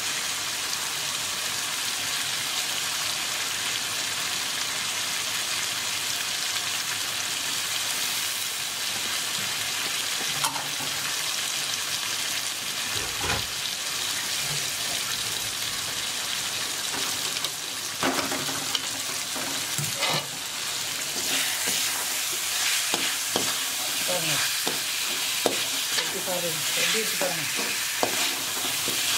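Prawns and onion-tomato-drumstick masala sizzling steadily in hot oil in a metal kadai. From a little past the middle, a perforated steel ladle stirs them, scraping and clicking against the pan.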